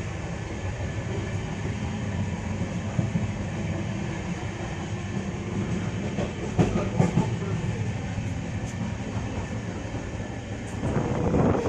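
LHB passenger coach of an express train running along the track: a steady low rumble of wheels on rail, with a few knocks over rail joints about halfway through. Near the end a louder rush of wind noise comes in.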